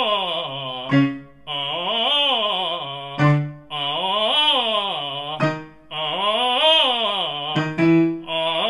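Male tenor voice singing wordless open-vowel slides, about four of them, each arching up roughly an octave and back down. Between the slides come short, sharp, loud vocal attacks: the glottal stroke he uses to set the vocal folds going and steady the voice.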